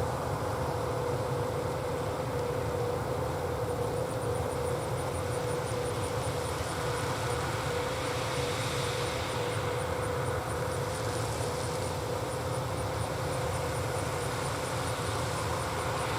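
John Deere 8000R tractors pulling Amadas peanut pickers, the engines and pickers running with a steady drone and one held tone. A faint, rapid high ticking comes in a few seconds in and keeps on.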